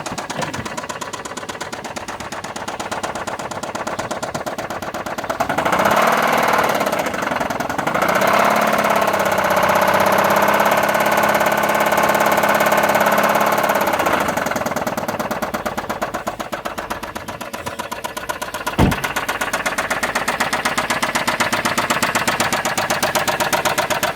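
2007 Chrysler Sebring's 2.7-litre V6 running with a rapid, even knock, revved up about five seconds in, held for several seconds, then let back down toward idle. The dealer places the knock in the lower end of the engine, the owner at the top; friends blame the lifters. A single sharp click comes near the end.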